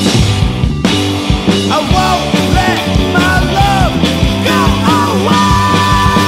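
Rock band playing an instrumental passage: drums and bass under a lead line that bends up and down in pitch, then settles on one long held note about five seconds in.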